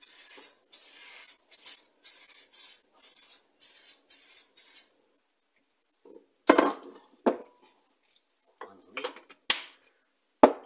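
Canola oil spray can spraying a glass baking dish in a quick run of short hissing bursts for about five seconds, then a few knocks as the glass dish is set down and shifted on the bench.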